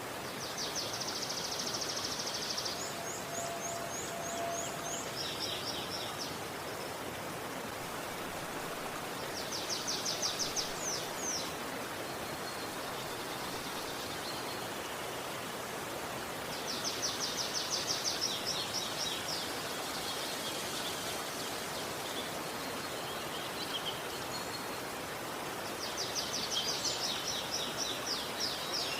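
Steady rush of flowing river water, with a songbird singing a rapid, high-pitched trilling phrase four times, roughly every eight seconds.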